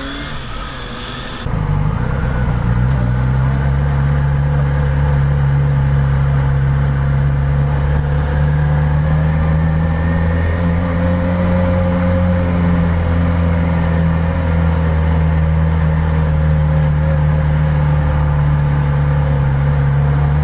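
Motorcycle engine running at a fairly steady speed while riding, with wind noise. It starts abruptly about a second and a half in, after a short different sound.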